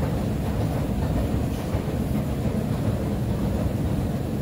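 Long subway-station escalator running while being ridden downward: a steady low rumble from its machinery with no breaks or distinct clicks.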